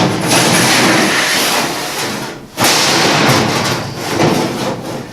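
A large sheet-steel floor panel being slid into place over the car's metal floor structure, a loud rough scraping and rattling that breaks off briefly about two and a half seconds in.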